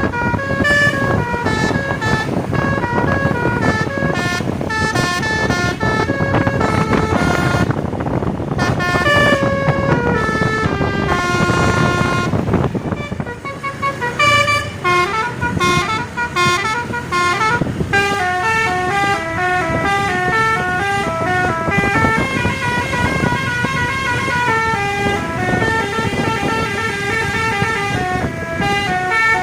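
Tour bus's basuri telolet horn, a multi-tone electric horn, playing a melody of short notes that step up and down, over the noise of engines and traffic.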